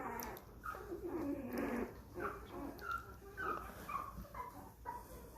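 A litter of young Mini Aussiedoodle puppies whimpering and squeaking, many short high calls one after another.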